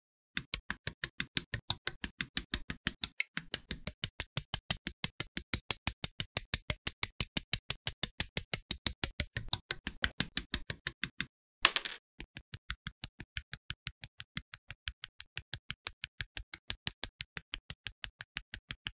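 Plastic model-kit parts being clipped from the sprue with nippers and snapped together: rapid, evenly spaced sharp clicks, about five a second, set to a steady beat. The clicks pause briefly with a short scrape about twelve seconds in.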